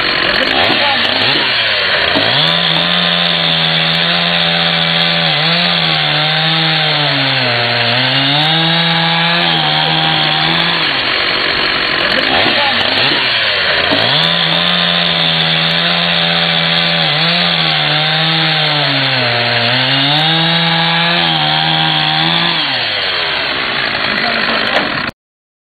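Chainsaw running at high revs, its pitch dropping and recovering again and again as it bogs down cutting into a log. The same pattern comes twice, and the sound cuts off suddenly near the end.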